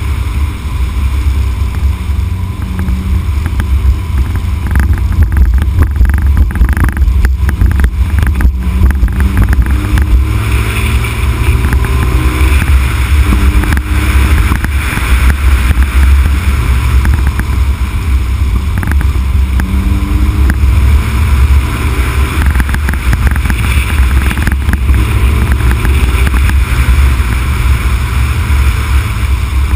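Loud, steady low rumble of wind and road noise on the microphone of a Honda Civic Type R (EK9) driving downhill. Under it, the car's engine note faintly rises and falls as it works through the bends.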